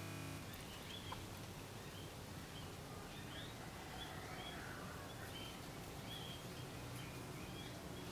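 Faint, short, high chirps of small birds, repeating every second or so over a low steady background hiss, with a single small click about a second in.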